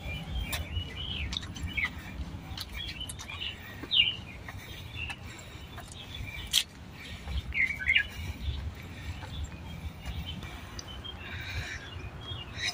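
Small birds chirping in short calls here and there, over a low steady rumble, with a few sharp taps, the loudest about a third and halfway in.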